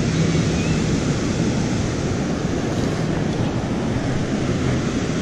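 Surf and wind rushing on the microphone, a steady noise with no breaks.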